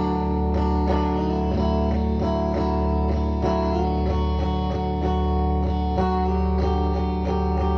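Song intro with no vocals: electric guitar picking notes about twice a second over a steady low drone.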